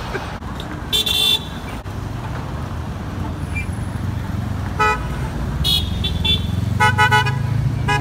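Car horns tooting in short beeps as traffic drives past: one toot about a second in, then a run of quick toots in the last three seconds, honks answering a roadside sign. Under them the steady noise of passing traffic and a vehicle engine's rumble that grows louder toward the end.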